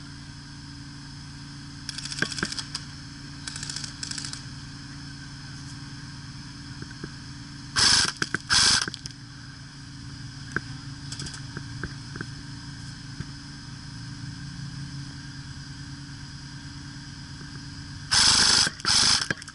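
Airsoft electric guns (AEGs) firing short full-auto bursts: two loud bursts in quick succession about eight seconds in and two more near the end, with fainter firing at the start, under a steady low hum.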